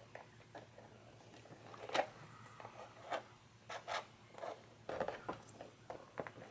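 Flat-tip screwdriver prying at the plastic snap clips along the edge of a keyboard's case: scattered light clicks and scrapes of plastic, the sharpest about two seconds in.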